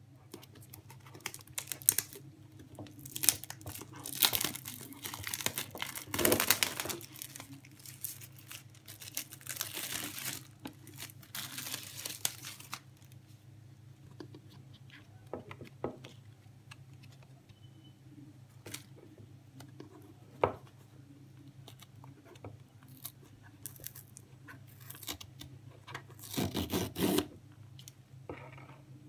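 Clear plastic shrink wrap being torn and crinkled off a small cardboard box, in irregular bursts of tearing and rustling for the first dozen seconds, then lighter crinkles and handling clicks, with another loud burst of crinkling near the end.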